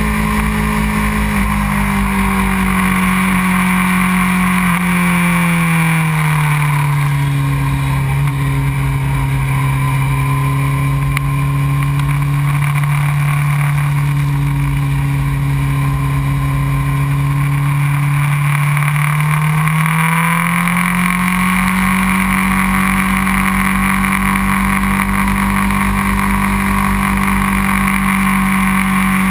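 2001 Honda CBR600 F4i's inline-four engine running at speed, with wind rushing over the bike. The engine note drops over the first several seconds and holds lower for about twelve seconds. About twenty seconds in it climbs back up and stays there.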